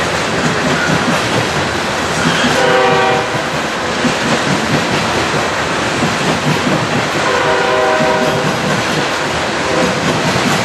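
Coal hopper cars rolling past, a steady rumble and clatter of steel wheels on the rails. A train horn sounds briefly twice, about two and a half and seven and a half seconds in.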